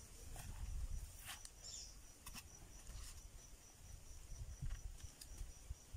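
Faint outdoor sound: an insect, cricket-like, chirping in a steady rapid pulsing trill, with a few sharp clicks and knocks from digging at the foot of a bamboo clump over a low rumble.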